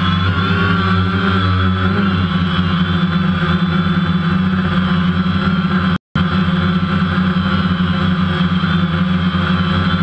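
DJI Phantom quadcopter's motors and propellers buzzing steadily, heard close up through the GoPro mounted on the drone, with the pitch wavering slightly as the throttle changes. The sound cuts out for a split second about six seconds in.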